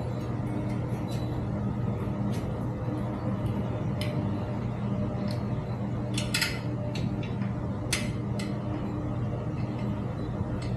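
Light metallic clicks and clinks of small bicycle parts being handled and fitted during assembly, with a quick cluster about six seconds in and a single sharp click near eight seconds, over a steady low hum.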